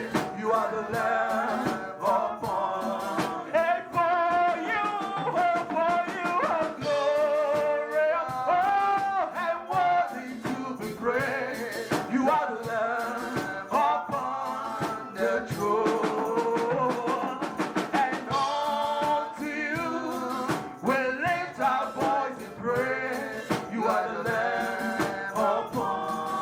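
Worship singing with a band: voices singing a praise song over drums and guitar with a steady beat.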